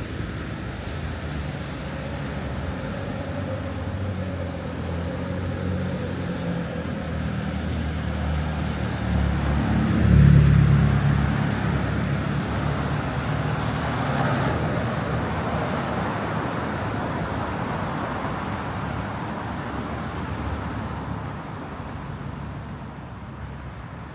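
Road traffic: engines running and tyres on the road, with one vehicle passing close about ten seconds in, after which the traffic noise slowly fades.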